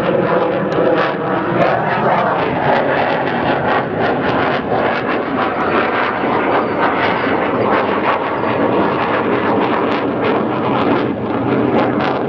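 Jet fighter flying overhead: a loud, steady engine rush, with tones that fall in pitch over the first two seconds.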